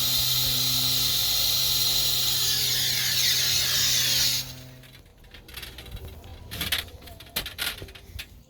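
A machine running with a loud steady hiss over a low hum, cutting off about four and a half seconds in. Scattered clicks and knocks of work with tools and pipe follow.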